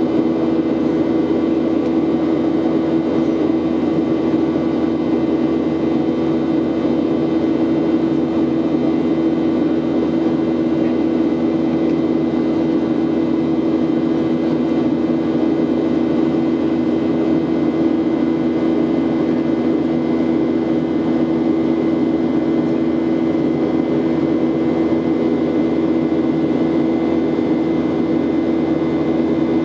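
Cabin noise of a jet airliner in flight, heard from a window seat: the steady drone of the turbofan engines and rushing air, with a constant low hum that does not change.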